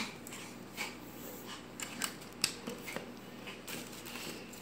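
Irregular plastic clicks and knocks from handling the parts of an aquarium wave maker.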